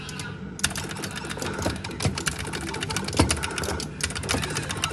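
Arcade cabinet push-buttons being mashed: rapid clicking of the buttons' switches, with a short pause about half a second in, over a steady low hum.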